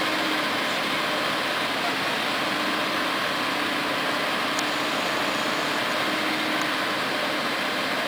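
Steady hiss and hum from a Boeing 767 running at low power, an even noise with a few faint steady tones and no change in pitch.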